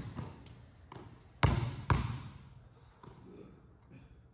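Basketball bouncing on a hardwood gym floor: a faint bounce, then two loud bounces about half a second apart, each ringing out in the large hall.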